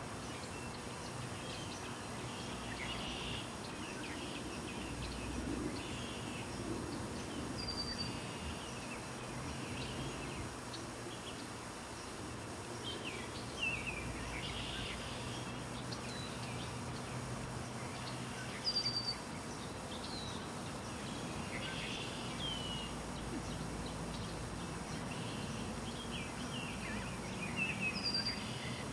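Ducklings peeping in scattered short high calls over a steady outdoor noise, with a brief high whistled note three times, about ten seconds apart.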